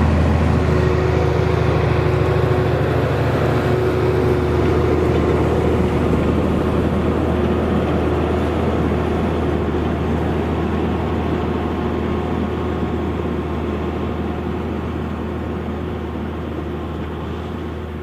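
Same Fortis 160 tractor's diesel engine running steadily with a deep hum while pulling a five-furrow plough, growing slowly fainter as the tractor moves away.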